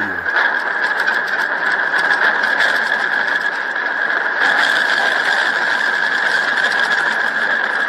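Continuous dense rattling and clattering of things shaken by a strong earthquake, heard on an NHK city-camera clip of the magnitude 7.2 Miyagi quake shaking Sendai at upper-5 intensity.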